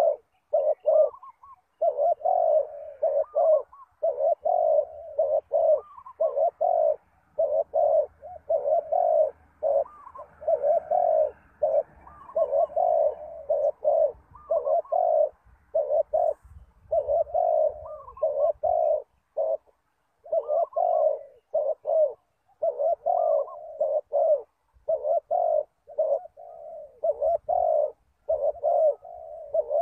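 Spotted dove cooing over and over: short coo notes in quick succession, some with an upward lilt, with only brief pauses.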